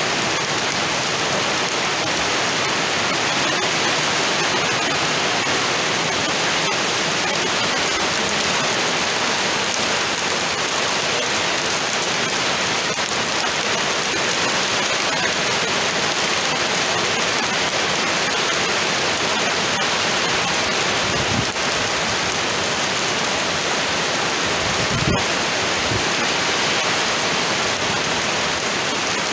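Heavy rain falling steadily, a dense even hiss. Two brief low thumps come a little past the middle.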